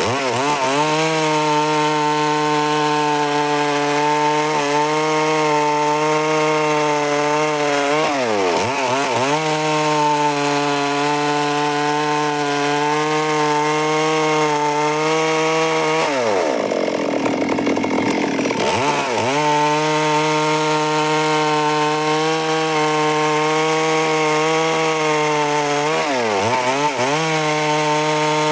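Stihl MS 382 two-stroke chainsaw running at high revs while sawing wood. Its pitch sags and climbs back four times, longest about two-thirds of the way through.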